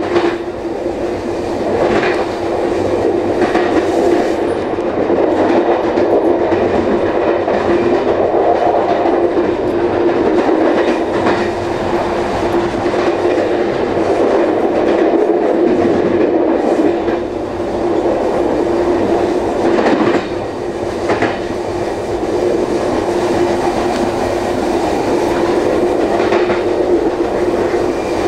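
Amtrak passenger train running along the track, heard from its rear car: a steady rumble of wheels on rail with a steady hum, and now and then a sharp click as the wheels cross rail joints and switches.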